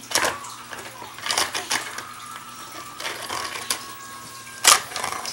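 Small plastic Littlest Pet Shop toy pieces clicking and tapping as a figure is handled on a plastic playset, with a sharper knock about four and a half seconds in.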